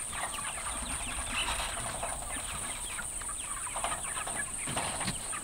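A flock of chickens clucking and peeping, many short overlapping calls.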